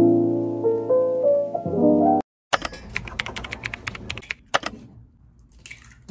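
Soft piano music that cuts off about two seconds in. After a brief gap comes a rapid run of sharp clicks like keyboard typing, about seven a second for roughly two seconds, as a typing sound effect.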